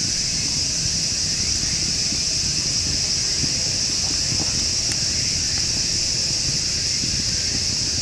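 Steady, high-pitched chorus of summer insects in a forest, unbroken throughout, over a low steady rumble.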